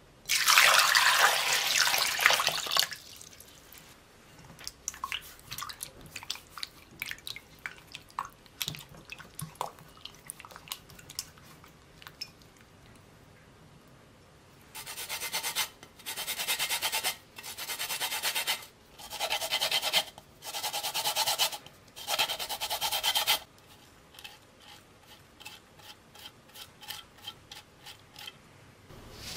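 Water poured into a glass bowl holding two lemons, followed by small splashes and drips as the lemons are handled in it. Then about six rubbing strokes of roughly a second each as the lemons are scrubbed by hand in the water to wash the peel.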